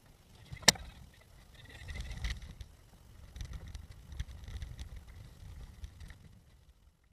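A race car being towed across grass: uneven low rumbling and bumping from the car rolling without its engine running, swelling twice, with one sharp knock under a second in.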